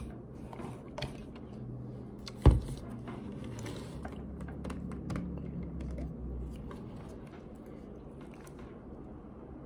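Handling of a plastic jar of starch and a drink bottle: a run of small clicks and taps, with one sharp knock about two and a half seconds in.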